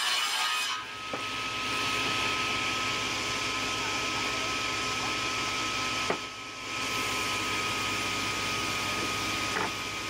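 Sawmill machinery running steadily: a continuous mechanical hum and hiss with a steady high whine. The sound briefly drops away twice, about a second in and about six seconds in, and there are a few faint knocks.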